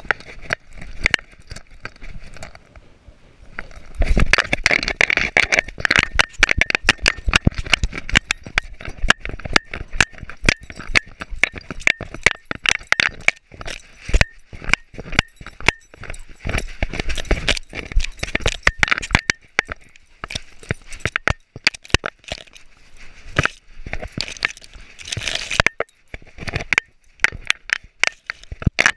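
Rapid, irregular clinking and knocking from the gear on a running dog's collar, where a GoPro is strapped, jolted with each stride. It grows much louder and busier about four seconds in as the dog breaks into a run.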